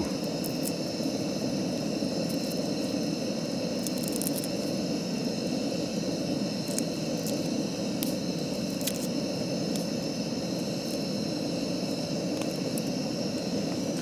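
Portable gas camping stove burning with a steady low roar, with a few faint clicks of a small knife peeling garlic.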